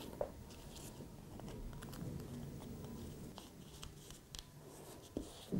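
Faint rubbing and light taps of fingers pressing and smoothing a repair patch onto a tent groundsheet's fabric on a table, with a few sharper clicks near the start and about five seconds in.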